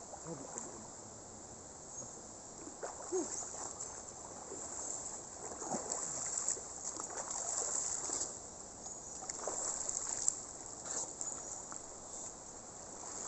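River water splashing and sloshing as people wade and swim in it, with a steady high chirring of insects behind.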